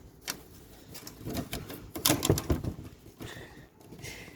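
Irregular sharp clicks and light knocks.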